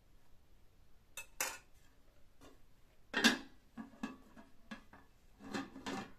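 A metal spoon clinks against a cooking pot, then a metal lid is set onto the pot with a loud clank about three seconds in. More clattering of the pot and lid follows near the end.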